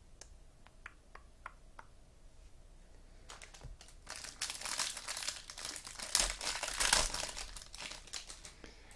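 Trading-card pack wrapper crinkling as it is handled and torn open. A few light clicks come first, then dense crinkling starts about three seconds in.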